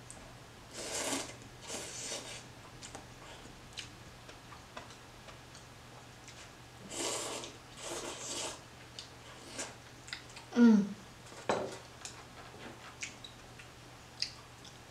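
Noodles being slurped in several short bursts, with light clicks of chopsticks against a stainless steel pan. About two-thirds of the way through, a short falling squeak and a sharp knock on the pan are the loudest sounds.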